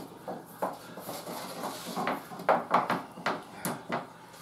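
A hand wiping oil around a round metal baking pan: soft rubbing, then a run of sharp clicks and knocks from about halfway in as the pan is handled.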